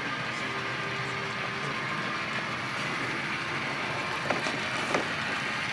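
HO scale model train running on the layout's track, a steady hiss with a faint hum in the first seconds and two light clicks near the end.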